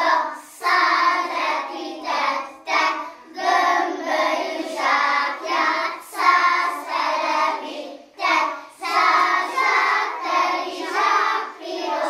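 A group of young children singing a song together in phrases about a second long, with short breaks between them.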